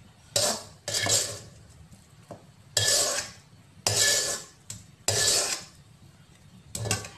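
Metal spatula scraping cooked rice out of a black wok (kadai), in about six separate strokes roughly a second apart.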